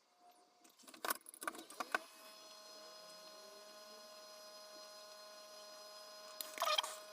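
A few light clicks and taps of soldering tools against a circuit board, then a faint steady electrical whine.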